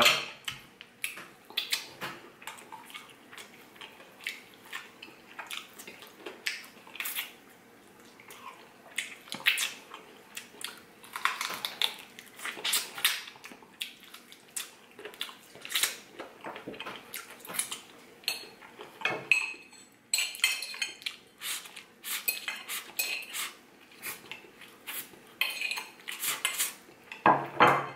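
Metal fork clinking and scraping on ceramic dinner plates in many sharp, irregular clicks.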